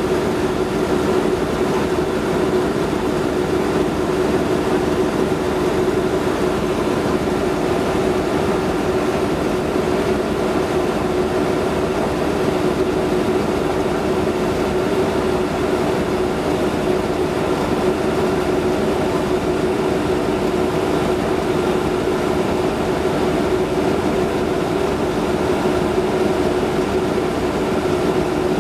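Diesel-electric locomotive's engine running at a steady droning hum at close range, with no rhythm of wheels on rail joints.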